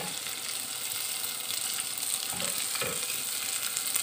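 Raisins sizzling in ghee in an aluminium pot, stirred with a silicone spatula, with a couple of soft knocks of the spatula against the pot partway through.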